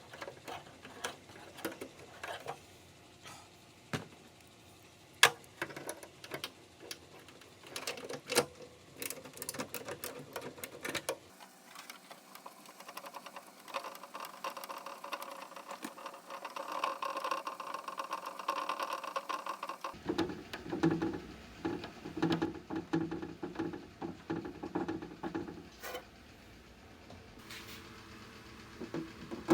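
Hand work on a Jeep Wrangler door: a run of sharp clicks, taps and knocks of tools and plastic trim parts. After about ten seconds it changes to a denser, steadier rattle.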